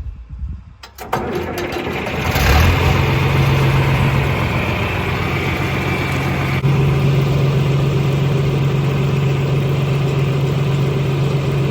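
Tractor engine running, building up over the first couple of seconds and then holding a loud, steady drone.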